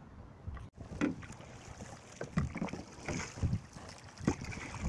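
A kayak paddle stroking through the water, with irregular splashes and thumps as the blades dip in and pull.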